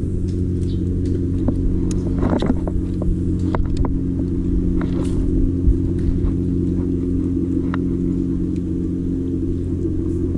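Small boat's engine running steadily at an even speed, with a few light knocks over it.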